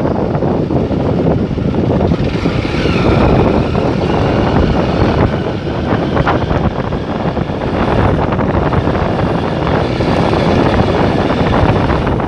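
Wind buffeting the microphone over the running and road rumble of a moving vehicle.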